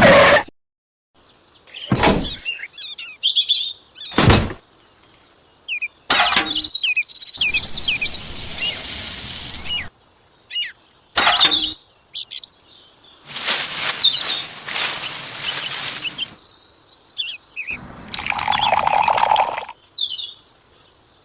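Birds chirping in short snatches, broken up by a couple of sharp knocks and several stretches of hiss that start and stop abruptly.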